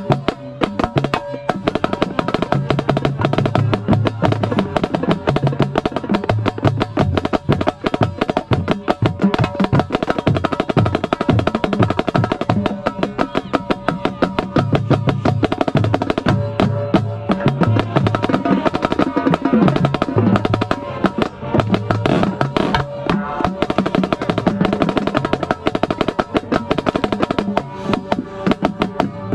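Marching snare drum played right at the drum, with rapid stick strokes and rolls on its Evans head throughout. Behind it the marching band's brass plays held notes over low bass pulses.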